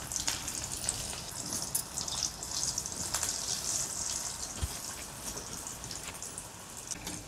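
Pudachi wadi, flour-wrapped coriander rolls, deep-frying in hot oil in a steel kadhai over a low gas flame: a steady high sizzle with small crackles.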